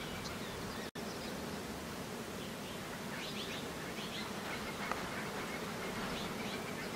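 Outdoor field ambience: a steady hiss of insects with a few faint, short bird chirps, and the sound cutting out for an instant about a second in.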